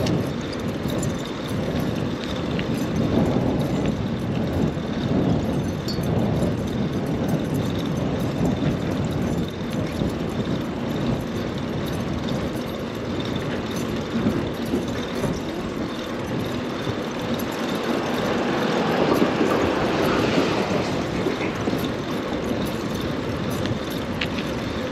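Dense rush-hour city street traffic heard from a bicycle: a steady mix of car engines and tyre noise, which swells louder for a few seconds about three-quarters of the way through.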